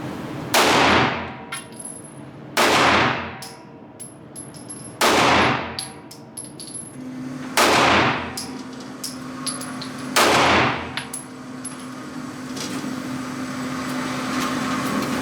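A Staccato pistol fired five times in slow, aimed succession, about two and a half seconds apart, each shot echoing as it fades. Faint metallic clinks fall between the shots.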